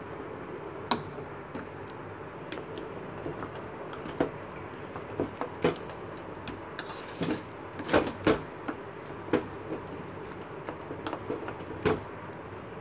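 Steel spoon mashing soft roasted eggplant in a plastic bowl, tapping and scraping against the bowl in irregular clicks and knocks, the loudest about eight seconds in, over steady background noise.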